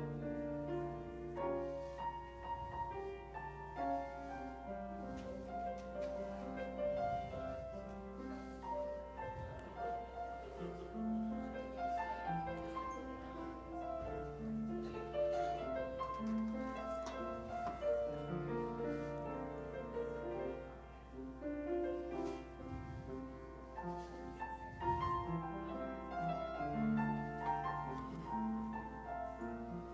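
Solo piano playing a slow, quiet piece of many short held notes, over a steady low hum.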